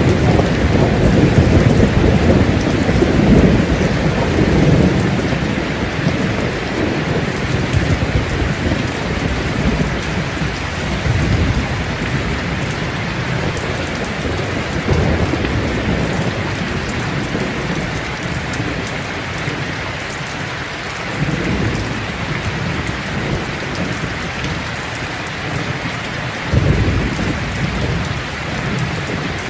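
Steady heavy rain from a thunderstorm, with thunder rumbling through the first few seconds and another short roll of thunder near the end.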